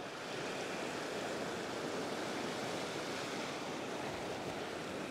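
Ocean surf washing over and around a rock shelf: a steady rush of breaking water and foam.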